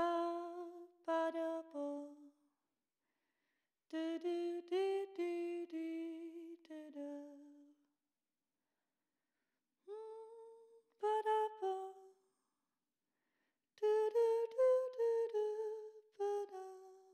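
A woman's unaccompanied voice humming or singing a slow, wordless melody in four short phrases of a few stepped notes each, with silence between the phrases.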